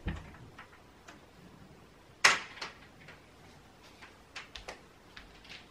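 Small clicks and taps from handling a nail polish bottle and its brush, with one sharper click about two seconds in and a few fainter ticks later.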